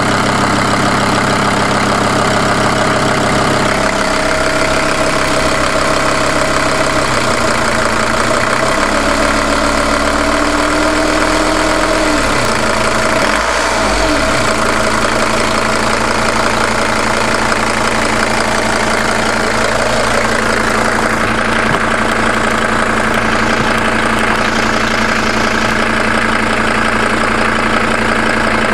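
Mercedes-Benz W210 E290's OM602 five-cylinder turbodiesel idling steadily, with a knock that the owner cannot decide is a real fault or only his imagination.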